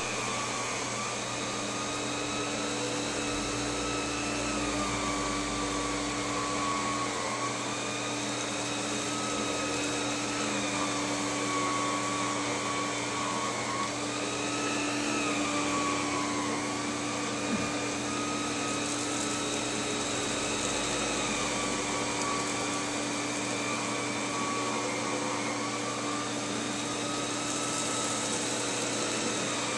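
Vacuum cleaner motor running steadily, its whine wavering slightly in pitch now and then.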